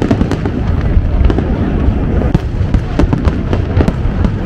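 Aerial fireworks display: shells bursting one after another in a dense run of bangs and crackles, several a second, over a continuous low rumble.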